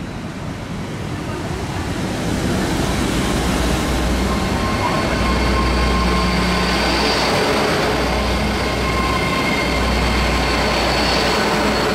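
Great Western Railway Hitachi Intercity Express Train approaching and passing through the station at speed. The rumble of wheels on rails grows louder over the first couple of seconds, then holds steady as the coaches sweep past, with faint high-pitched whining tones over it.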